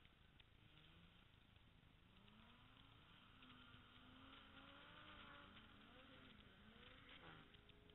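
Faint, distant drift car engine revving up and down, its pitch rising and falling repeatedly and growing a little louder through the middle.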